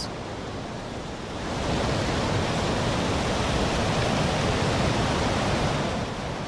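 Steady, loud rushing noise with no pitch, swelling about one and a half seconds in and then holding level.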